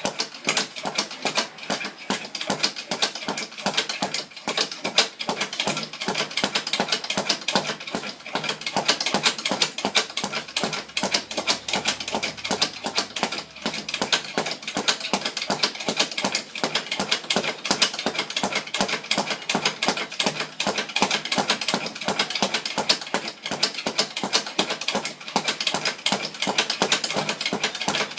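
Rapid, unbroken clattering of many quick strikes a second, something being hit over and over by hand at high speed.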